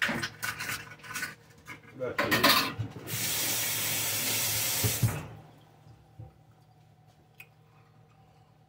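A few clattering knocks, then a kitchen tap runs for about two seconds and is shut off.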